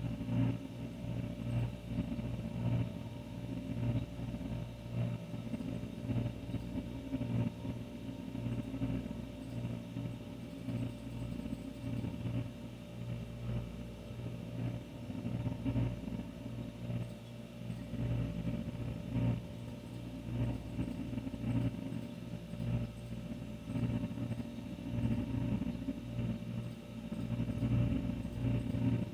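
Old refrigerator's compressor running with a steady low hum, its level wavering slightly.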